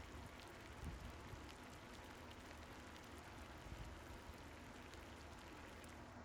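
Faint hiss with scattered soft crackles from a lidded pot of ganji (rice porridge) heating on the stove, with a couple of small low thumps.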